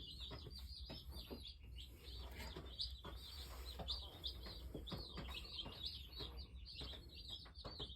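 A brood of day-old Cornish Cross chicks cheeping constantly, many high peeps overlapping, with a few light taps and scuffles among them.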